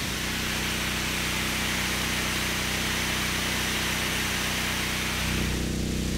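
Small portable gasoline water pump running steadily, with the hiss of water jetting from a fire hose nozzle. The spray hiss drops away about five seconds in, while the pump engine keeps running.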